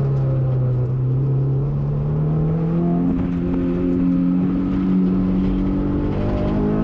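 Honda S2000 AP1's 2.0-litre four-cylinder engine heard from inside the cabin, pulling under load. It holds low revs for a second or so, then rises steadily in pitch as the car accelerates out of a slow corner.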